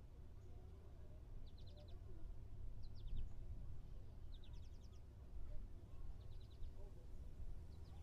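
Summer beach parking lot ambience: a low steady rumble with short, high chirping trills repeating about six times, one every second or two.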